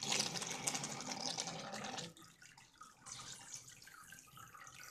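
Water bubbling and sloshing in a plastic tub as air is blown down a tube into a submerged plastic jar, forcing the water out of it. It starts suddenly, is loudest for the first two seconds, then goes on more quietly.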